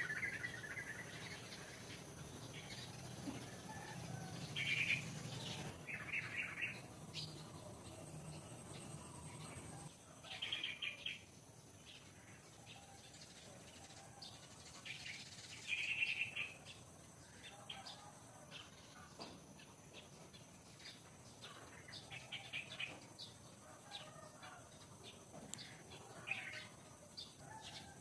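Birds chirping in short trilled calls every few seconds over a faint steady background. A low hum drops away about ten seconds in.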